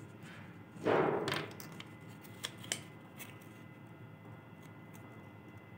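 Paper rustling as a glued strip of red craft paper is handled and rolled into a ring, loudest for about half a second near one second in, followed by a few light clicks and taps.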